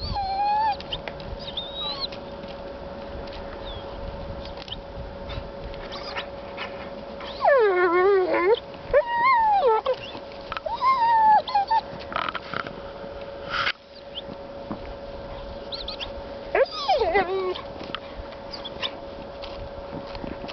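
Dog whining with frustration at food it cannot reach, in several drawn-out, wavering calls that rise and fall in pitch. The longest comes about seven to nine seconds in and another near seventeen seconds, between scattered light clicks.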